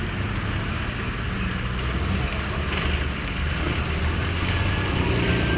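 Steady low rumble of wind on the microphone, mixed with a small car coming up the road.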